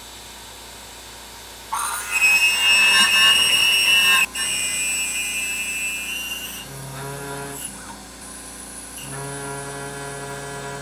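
CNC router spindle peck-drilling a 4.2 mm hole in thick aluminum plate with a regular-length twist drill. About two seconds in, the bit chatters with a loud, high squealing ring that cuts off sharply about four seconds in, and shorter, lower buzzing tones follow. Drill-bit chatter like this is usually a sign that the feed rate is too low.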